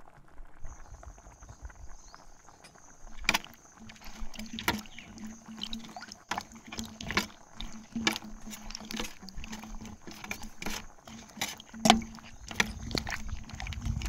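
Wooden spatula stirring thick paneer gravy in a non-stick kadhai, knocking and scraping against the pan at irregular intervals of about a second, starting about three seconds in.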